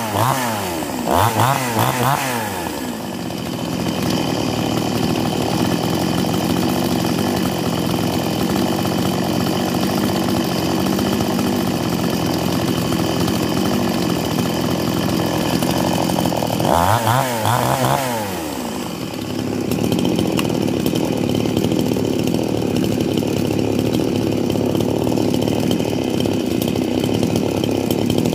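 Gasoline chainsaws running at idle, with quick revs of the throttle up and down twice in the first two seconds and again about 17 seconds in.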